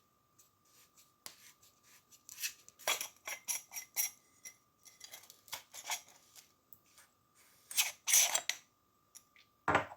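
Metal parts of a Wildcat Evolution rifle moderator being handled and unscrewed: scattered clicks, scrapes and rubs of the threaded pieces, with a louder scrape about eight seconds in.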